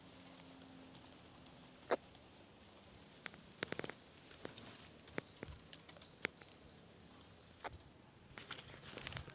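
Scattered light clicks and rustles of hands handling a freshly caught fish and fishing line, with a busier cluster a few seconds in.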